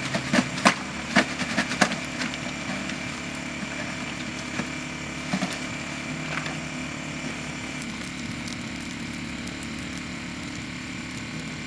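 Portable generator running with a steady hum. A few sharp clicks and knocks sound in the first two seconds.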